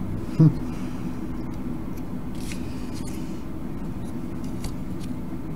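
Steady low background hum, with faint light clicks and rustles of small LEDs and a circuit board being handled and pressed into place. A brief low murmur of the voice about half a second in is the loudest sound.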